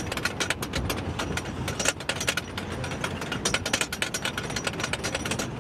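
Roller coaster train climbing the lift hill: rapid, irregular clacking of the anti-rollback ratchet over a low mechanical rumble.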